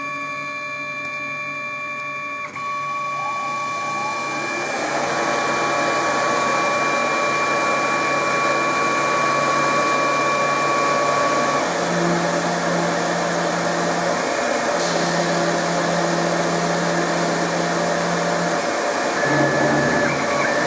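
Denford Orac CNC lathe running a machining cycle: its motors whine in steady tones, a hiss builds up over the first few seconds, and a low motor hum steps up and down in pitch several times in the second half as the moves change.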